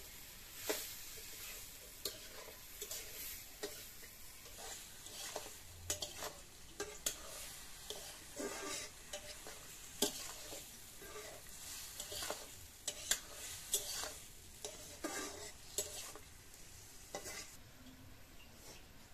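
Food sizzling as it fries in a pan, stirred with a spatula that scrapes and knocks irregularly against the pan.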